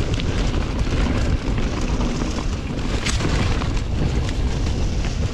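Mountain bike riding down a trail, heard through an action camera's microphone: a steady low rumble and wind buffeting, with frequent sharp clicks and rattles from the bike.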